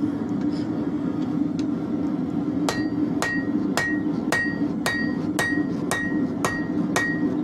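Hand hammer striking hot leaf-spring steel on an anvil, forging a knife blank. After a couple of seconds of only a steady low hum, the blows begin and keep an even beat of a little under two a second, each with a bright ring from the anvil.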